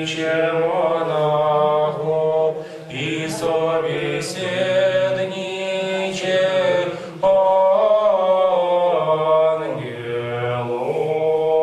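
Orthodox church chant: a man's voice singing a slow liturgical hymn in long held notes that glide from one pitch to the next, with short breaths between phrases.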